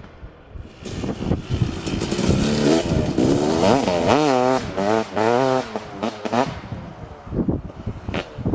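Kawasaki KX250 two-stroke single-cylinder dirt bike with an FMF Gnarly expansion-chamber pipe, revving hard with the throttle blipped repeatedly, its pitch rising and falling several times after a quieter first second.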